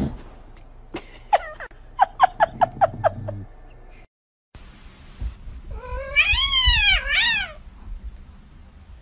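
Domestic cat vocalising: first a quick run of about eight short, falling chirps, then, after a cut, one long wavering meow that rises and falls in two parts about six seconds in.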